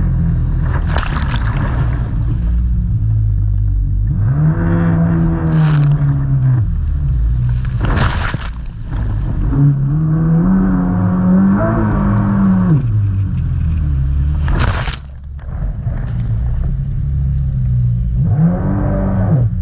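Jet ski engine revving up and easing off three times, over a steady low rumble, with several sudden noisy hits.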